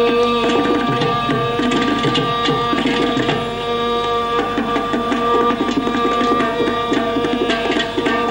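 Carnatic music ensemble: quick, dense strokes on mridangam and ghatam over steady held pitches from the violin and drone.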